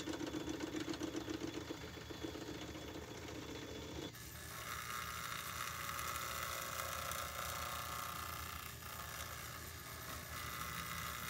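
Small metal-turning lathe running under power, turning a taper on a model engine connecting rod held between centres. About four seconds in, the sound changes abruptly from a pulsing hum to a higher, steadier sound.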